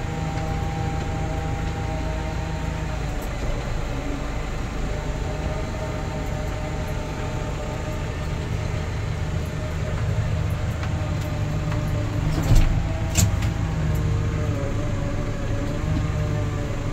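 Tractor diesel engines running steadily under load, heard from inside a tractor cab, with a pull-type corn picker working alongside. Two sharp knocks come a little after twelve and about thirteen seconds in.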